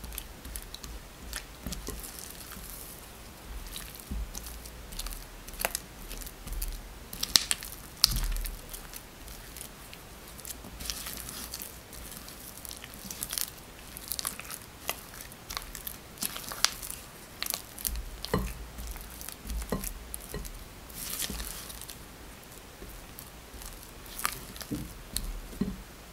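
Spatula mixing sticky white bean paste dough in a glass bowl: irregular wet squishing and scraping, with sharp clicks as the spatula strikes the bowl.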